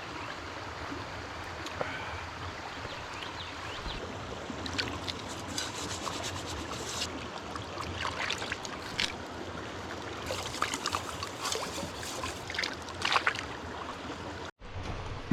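River water running steadily, with scattered sharp clicks and rattles from about five seconds in. The sound cuts out for an instant near the end.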